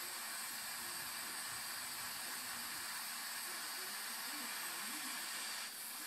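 Gas stove burner hissing steadily under a tea kettle that has just been put on the flame, with a few faint clicks near the end.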